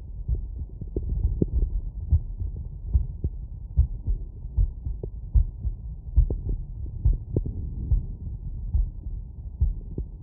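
Human heartbeat heard through a stethoscope: a steady lub-dub rhythm of dull thumps, about one beat a second, over a low rumble. It is the heart beating while lying down after a bout of exertion.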